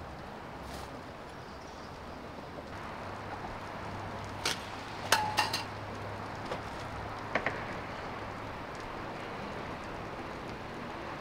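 Steady outdoor background hiss with a low hum through the middle, broken by a few sharp clicks and a short metallic clink about five seconds in as a backpack is set down and handled.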